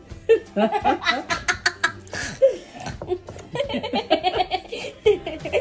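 A person laughing in quick repeated bursts, in two bouts.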